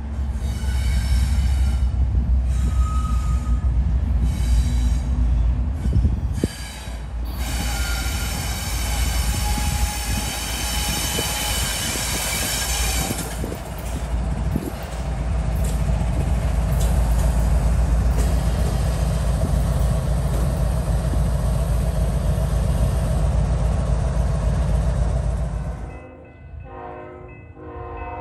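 Air horn of a BNSF diesel locomotive sounding four blasts, long, long, short and a final long one, the pattern sounded for a grade crossing. Under it is the rumble of the locomotives' engines as the train passes close by. About 26 s in, the rumble cuts off and a fainter horn sounds from a train farther away.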